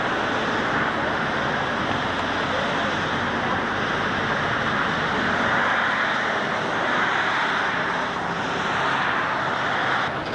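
Steady road traffic noise, an even rushing hiss that holds level and cuts off at a tape splice near the end.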